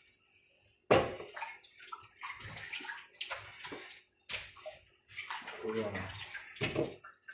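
Kitchen tap water running and splashing in the sink while chicken wings are rinsed by hand, coming in uneven spurts that start suddenly several times.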